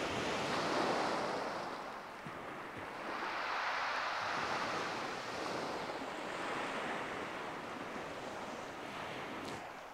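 Waves breaking on the beach: a steady wash of surf that swells about a second in and again around four seconds in, then eases off.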